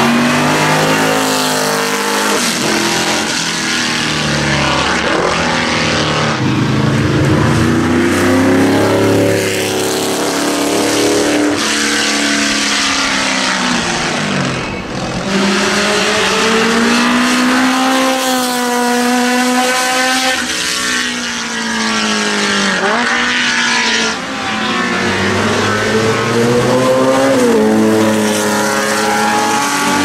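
Historic sports-racing cars passing one after another on a wet circuit, engines rising and falling in pitch as each accelerates and goes by, over a hiss of spray from the tyres.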